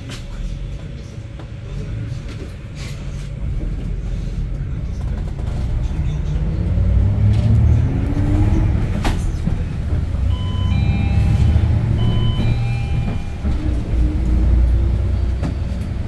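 Hyundai New Super Aero City city bus's CNG engine heard from inside the cabin, running with a low rumble that swells as the bus accelerates, its pitch rising for a few seconds before a click about nine seconds in, as with a gear change in its five-speed manual gearbox. A few short electronic beeps sound a little later.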